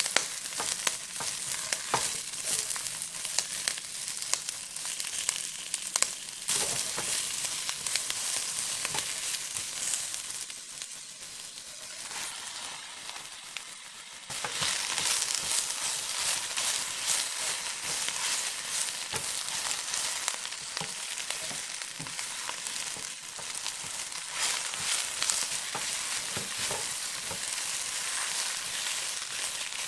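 Napa cabbage stir-frying over high heat in a nonstick wok: a steady high sizzle full of small crackles, with a spatula tossing the pieces. The sizzle drops back for a few seconds near the middle, then comes back louder about halfway through, when the cabbage leaves go into the hot pan.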